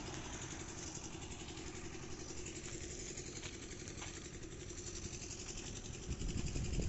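A motor vehicle engine running steadily, a low even hum.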